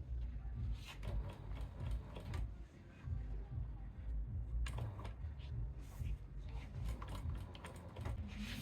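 Irregular mechanical clicks and taps, like small parts being handled or worked, over a steady low rumble.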